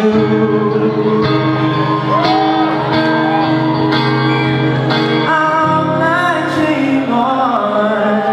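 Live pop song performance: a singer's sliding vocal runs over sustained chords.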